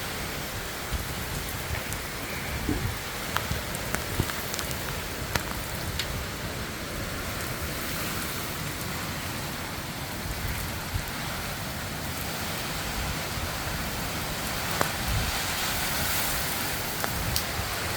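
Heavy rain from Hurricane Ian falling steadily, with scattered sharp ticks of drops striking nearby surfaces.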